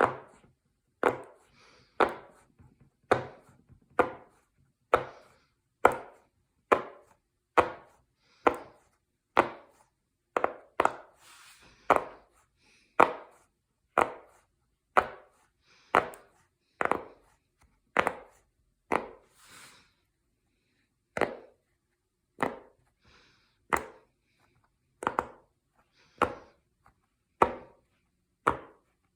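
Silicone pop it fidget toy being pressed bubble by bubble: short, sharp pops about one a second, with a brief pause partway through.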